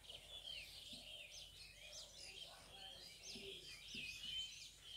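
Faint, rapid chirping of small birds, with a few soft marker strokes on a whiteboard.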